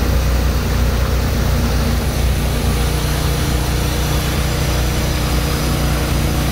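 Motorboat engine running steadily under way as a low hum, with the rushing noise of the churning wake behind the boat.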